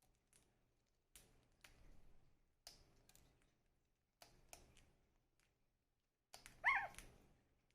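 Pet bird fidgeting with food or toys, making scattered light clicks and taps, then giving one short chirp about two-thirds of the way in.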